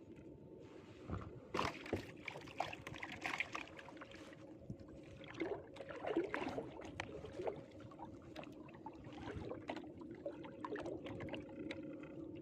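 Water sloshing, splashing and dripping in irregular bursts as a gill net is hauled through the water of a flooded field, with a faint steady hum underneath.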